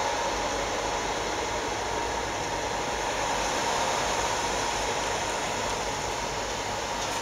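Cooling fans of an LED photodynamic-therapy machine running steadily while its lamps are lit: an even hiss with a faint steady whine.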